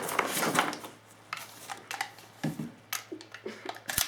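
Handling noise while unpacking a new airsoft rifle from its box: a rustle of packaging, then scattered clicks and knocks, with a sharp double click near the end.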